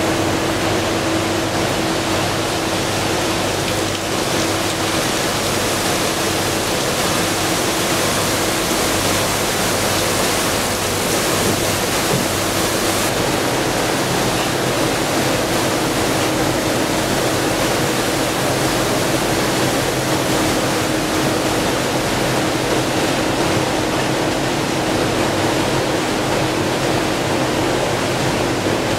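Steady rushing noise of a river cruise boat under way, with a constant drone from its engine running beneath it.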